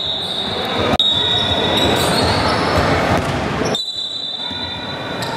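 Basketball game sound in a gym: a ball bouncing on the court with a sharp knock about a second in, over a dense wash of players' and spectators' noise. A steady high-pitched tone runs through most of it and breaks off near the end.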